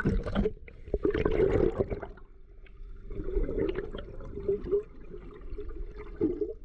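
Muffled water gurgling and bubbling heard from a camera held underwater in shallow sea water, in uneven bursts, as a shrimp net is pushed through the water along the sandy bottom.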